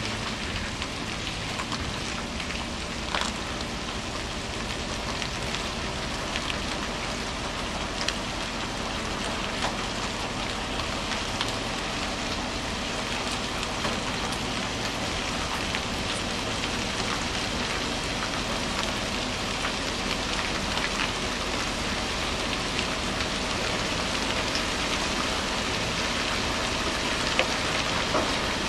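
Steady hiss of light rain, with a faint low hum of the heavy truck's diesel engine slowly hauling a barge on a multi-axle transporter trailer.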